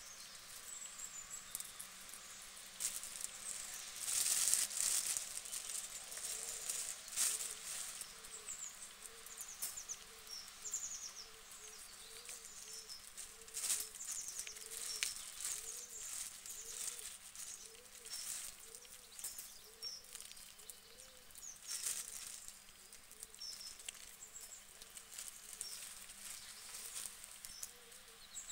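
Small animals in a pen: a soft low call repeating about once a second, with faint high chirps and scattered sharp crackly clicks, a few of them louder.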